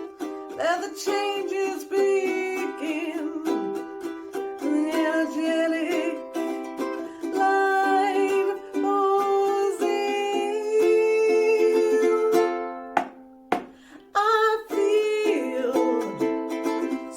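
Ukulele playing a song with a voice singing along, a short break about thirteen seconds in before the music picks up again.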